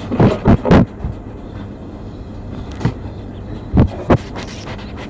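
Cats bumping and pawing at a camera on the sofa, giving dull thumps and rubbing on the camera body: three close together in the first second, more near three and four seconds in, over a steady low rumble.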